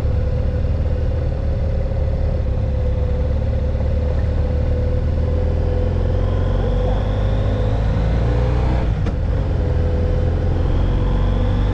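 BMW F800GS parallel-twin motorcycle engine running steadily under way, with wind rush on the helmet-mounted camera's microphone.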